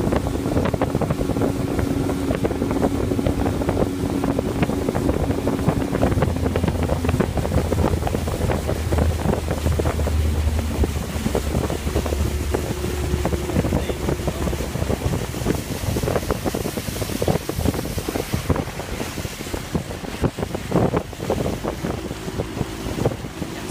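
Bass boat running across a lake under its outboard engine: a steady low engine drone under loud wind buffeting the microphone and water rushing past the hull.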